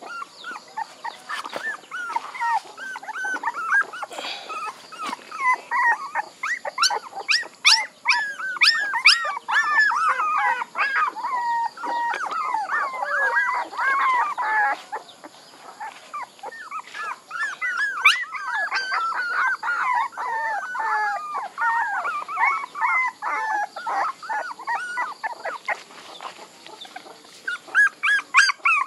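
A litter of young puppies whining and yelping, many short high-pitched cries overlapping one another, with brief lulls about halfway through and again shortly before the end.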